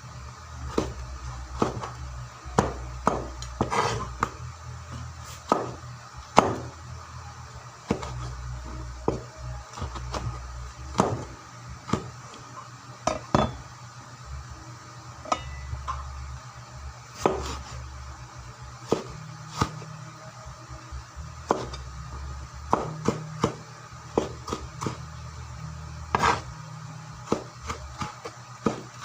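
A kitchen knife knocking on a cutting board while cutting tomatoes, in irregular strokes about one or two a second, some sharper than others, over a steady low hum.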